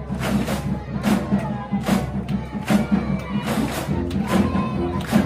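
Background music with a steady beat, a little under one beat per second, over a low bass line.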